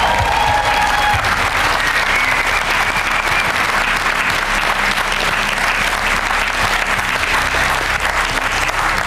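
Studio audience applauding steadily. A short musical sting tails off in the first two seconds or so.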